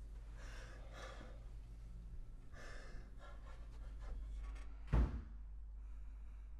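Shaky, frightened breathing and gasps from people hiding in a small room, over a low steady hum. About five seconds in comes a single heavy thump.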